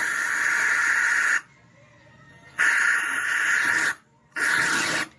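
Three bursts of hissing, each lasting about one to one and a half seconds, starting and stopping abruptly with short quiet gaps between.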